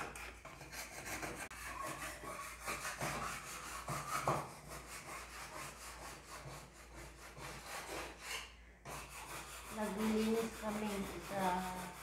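Continuous scratchy rubbing noise made of many quick strokes; near the end a voice briefly hums or mutters a few notes.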